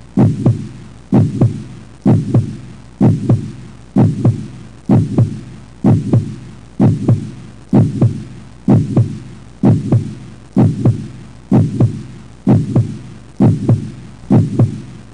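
A heartbeat, each beat a double thump, repeating steadily at about one beat a second.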